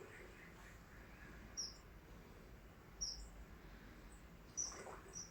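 Common kingfisher calling: four short, shrill, high-pitched chirps about a second and a half apart, over faint river-side background noise.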